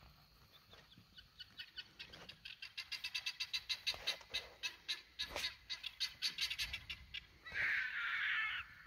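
A bird calling: a fast run of sharp clicking notes, about nine a second, that swells and fades over several seconds, then one harsh, rasping call about a second long near the end.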